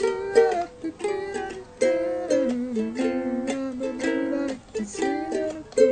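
Instrumental break of an upbeat pop song led by plucked ukulele strumming, with no singing.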